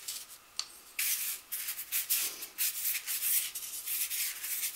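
Paintbrush wet with mineral spirits scrubbing pastel into 400-grit UArt sanded paper for an underpainting, in quick scratchy strokes, about three a second, that start about a second in.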